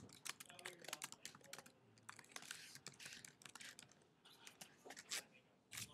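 A run of quick, irregular light clicks and taps, close to the microphone.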